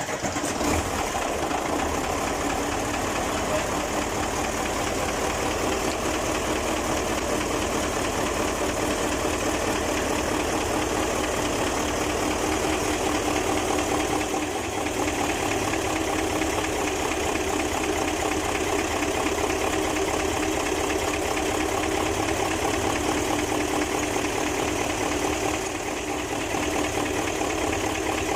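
Mitsubishi Fuso 8M20 V8 diesel engine idling steadily at an even speed.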